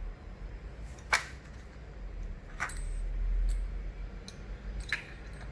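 Small metal hardware being handled: three sharp clicks, the loudest about a second in, over a low handling rumble.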